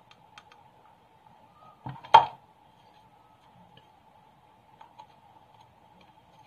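Small knocks and ticks from a plastic bottle and foam cutouts being handled on a plate, the loudest a sharp double knock about two seconds in. A faint steady hum runs underneath.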